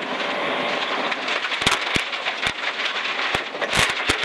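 Rally car at speed on a gravel stage, heard from inside the cabin: the engine running under load beneath a dense noise of tyres on loose gravel and stones hitting the underbody, with several sharp knocks.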